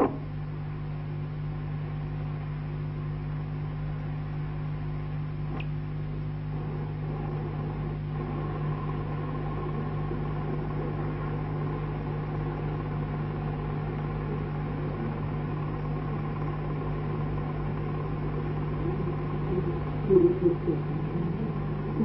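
Steady electrical hum and hiss from an old film's soundtrack, a low drone of several steady tones. A short, louder uneven sound breaks through about twenty seconds in.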